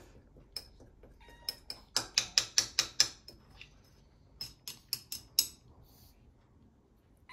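Utensil clinking and tapping against a dish while cat food is being readied. There is a fast run of sharp clinks about two to three seconds in and another group of taps around five seconds.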